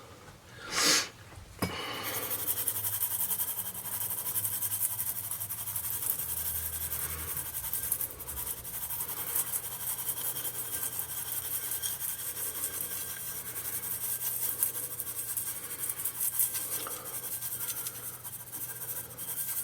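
Brown sugar and cinnamon mixture being sprinkled and scattered over buttered dough: a continuous gritty rustling and scratching made of many fine grainy ticks, starting about two seconds in.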